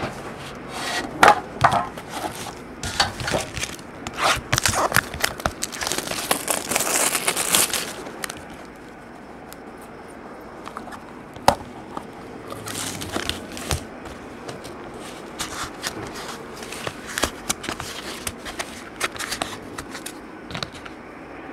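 Hands opening trading-card box packaging, with rustling and crinkling of wrapper and cardboard and light clicks and taps against the table. It is busiest in the first eight seconds, including a longer rustle shortly before that, then settles to occasional soft clicks.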